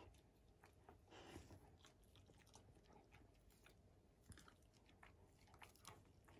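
Near silence with faint, scattered wet clicks of an Akita dog licking and chewing at the floor for leftover roasted sweet potato, and a brief soft rustle about a second in.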